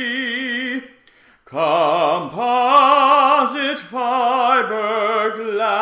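Operatic male singing: long held notes with wide vibrato, breaking off for about half a second about a second in and then going on.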